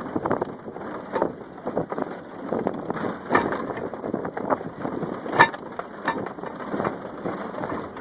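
A refrigerator door sliding along as a sled, giving a continuous rough scraping rumble with many small knocks, and one sharp bang about five and a half seconds in.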